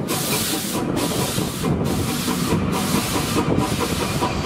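Adler replica steam locomotive passing close by under steam, its exhaust hissing in regular beats a little faster than once a second, with the rumble of the train rolling underneath.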